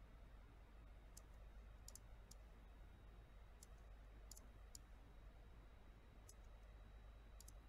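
Faint computer mouse button clicks, single and in quick pairs, about one every second, over near silence with a low hum.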